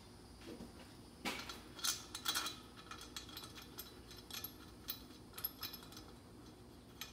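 Faint metallic clicks and clinks of hand tools working bolts into a driveshaft bracket: a quick cluster between about one and two and a half seconds in, then scattered single clicks.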